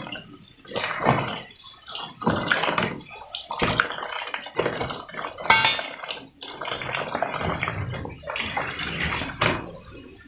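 Carrots and green beans being washed by hand in a basin of water in a kitchen sink: splashing and sloshing water in uneven bursts, with dripping.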